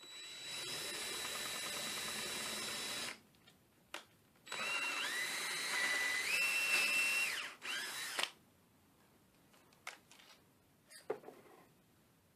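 Electric drill with a 27/64-inch bit enlarging a bushing hole in a guitar's wooden body, in two runs of about three seconds each. The second run changes speed in steps. A few light clicks follow.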